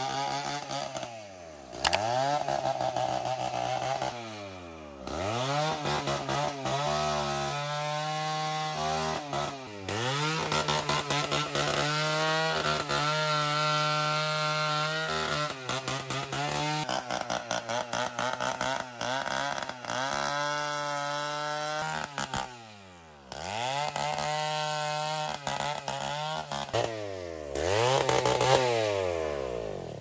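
Stihl chainsaw cutting through a felled teak tree, running at high revs through each cut. Several times it is let back off the throttle between cuts, so the engine note falls and then climbs again.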